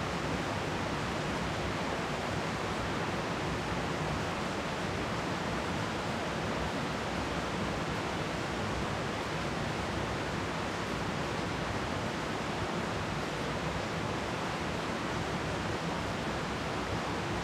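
Steady rain falling on leafy trees during a spring thunderstorm: an even, unbroken hiss with no thunder.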